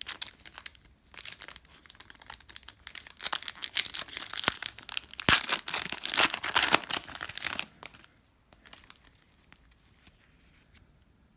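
Plastic-foil trading card pack wrapper being torn open and crinkled, with sharp crackles and rips. It stops about two-thirds of the way through.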